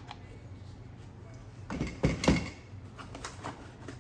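Hard plastic knocks and clicks from handling a cordless power tool and its slide-on 18-volt battery pack, in a short cluster about two seconds in, over a steady low hum.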